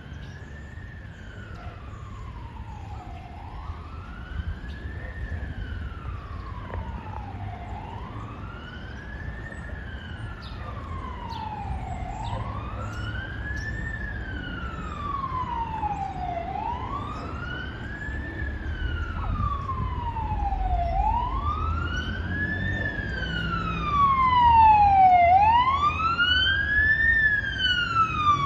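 Fire engine's wail siren sweeping slowly up and down, about once every four and a half seconds, growing steadily louder as the truck approaches. A low engine and traffic rumble runs underneath.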